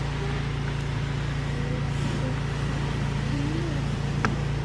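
A steady low motor hum, like an engine running, with one sharp click near the end.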